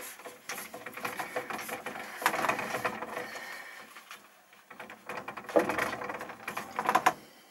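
Hands handling hoses and fittings at a water pump: irregular rustling, clicks and light knocks, quieter for a moment midway.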